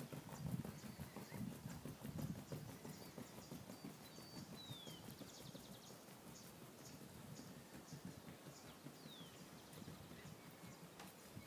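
Rapid hoofbeats of a ridden horse on grass. They are loudest in the first few seconds and grow fainter as the horse moves away.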